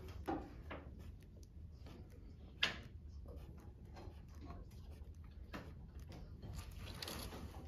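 Pencil ticking and scratching short strokes on drafting paper along a straightedge: a series of light irregular ticks, with one sharper click about two and a half seconds in and longer scratchy strokes near the end.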